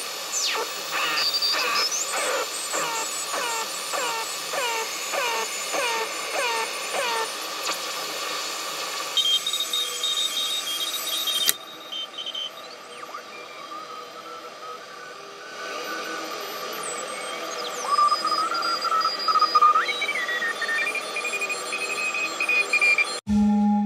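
Homemade regenerative shortwave receiver in self-oscillating mode, its loudspeaker giving static and beat-note whistles as it is tuned across SSB and CW signals. For the first seven seconds a string of falling chirps repeats about twice a second. After that come steady high whistles and gliding tones that rise and fall as the tuning moves.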